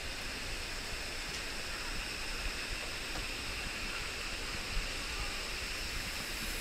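Waterfall and cascading stream water rushing steadily.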